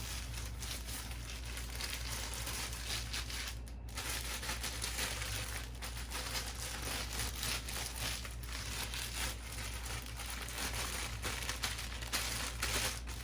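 Plastic packaging crinkling and rustling continuously as it is handled and wiped down, with many small crackles.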